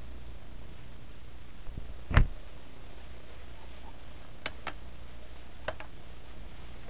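A single sharp knock about two seconds in as the SQ8 mini camera is set down on a hard surface, then a few small clicks from handling, all over the steady low hum and hiss of the camera's own tiny microphone.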